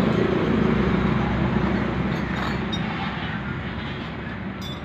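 A low engine rumble that fades gradually.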